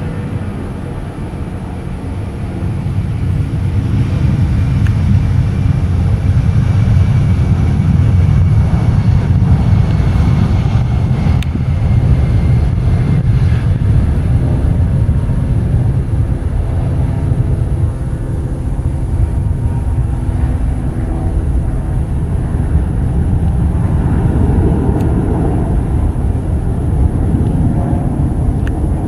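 Boeing 757's twin jet engines at takeoff thrust: a deep rumble that builds over the first few seconds and then holds as the jet rolls down the runway, lifts off and climbs away.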